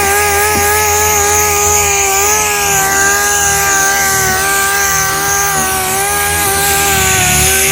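Power sander running steadily on a fiberglass truck-bed panel with 80-grit paper, giving a high, fairly even motor whine that wavers slightly as it is worked.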